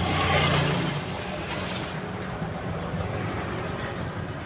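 Steady motor vehicle noise: an engine hum under road noise, swelling louder in the first second as if traffic is passing.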